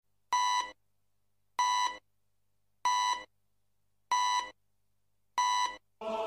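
Five short electronic beeps, evenly spaced about a second and a quarter apart, each a steady high tone, as a sampled intro to a recorded song. Sustained synth music comes in just before the end.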